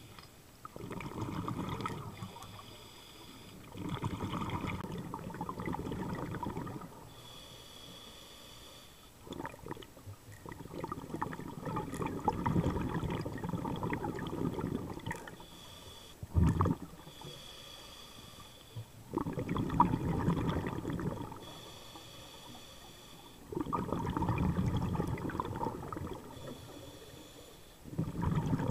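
Scuba diver breathing through a regulator underwater. About six long, bubbling exhalations every few seconds alternate with shorter inhalations that carry a thin high hiss. A single sharp low knock comes about halfway through.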